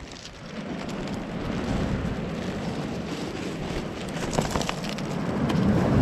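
Sea surf rushing steadily onto the shore, swelling louder near the end as a wave comes in.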